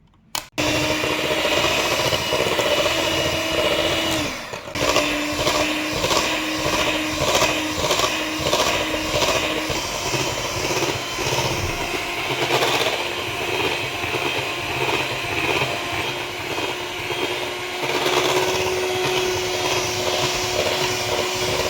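Electric mixer running, beating butter, egg, sugar and vanilla together in a bowl. Its steady motor whine dips briefly about four and a half seconds in, then carries on at a slightly lower pitch.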